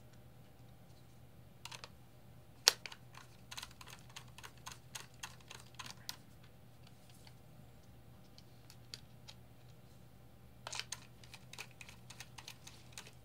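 Small irregular clicks and taps of a metal nut driver on the screws and nuts of an acrylic oscilloscope case, metal knocking against the acrylic and the circuit board. One sharper click comes just under three seconds in, then a quiet stretch, and another run of clicks near the end. A faint steady low hum sits underneath.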